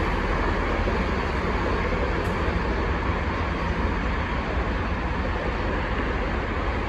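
Union Pacific weed sprayer train's RELCO-built locomotive running with a steady low rumble as the train rolls slowly away along the track.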